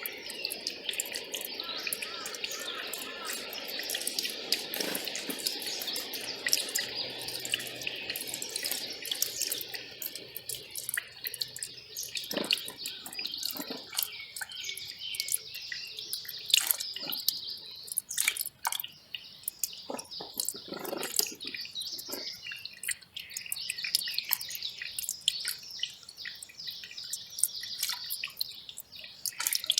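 Small mountain stream trickling and splashing over rocks, with many sharp drips and splashes and birds chirping now and then. The flow is fuller for about the first ten seconds, then thins to more separate splashes.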